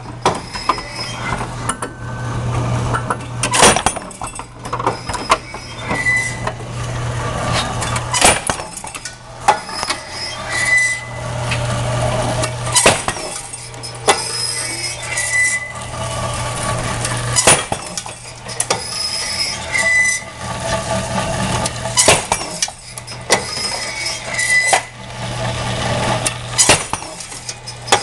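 Impact-fatigue drop test machine cycling: a steady low hum from its drive under frequent metallic clanks, clinks and rattles. A short high squeak comes about every four and a half seconds, once per cycle of the rig's 12.66 cycles a minute.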